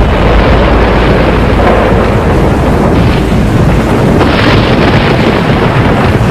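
Loud thunderstorm sound effect: continuous deep rumbling thunder, swelling into louder claps about three and four and a half seconds in.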